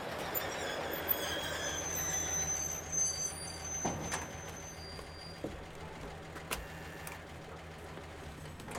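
Street ambience: a steady low hum like distant traffic, with short high chirps in the first few seconds and a couple of sharp knocks about four seconds in.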